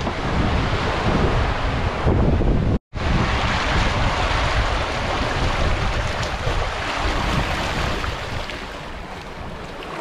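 Wind buffeting the microphone over the rush of breaking, churning sea around a sailing yacht in a 20-knot wind and confused swell. The sound cuts out completely for a moment about three seconds in, and eases a little near the end.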